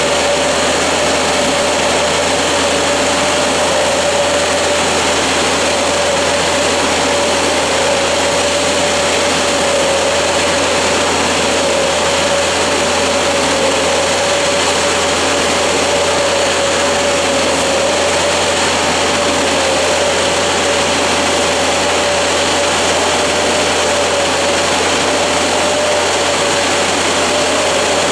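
Oscillating fan sprayer rig running while spraying: a loud, steady rush of fan air and spray over the engine, with one steady whine that wavers slightly in pitch.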